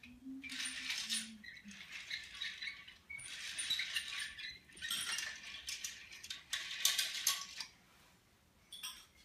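Small toy train cars rattling and clattering against one another and the floor in repeated spells as a toddler handles them, dying down near the end.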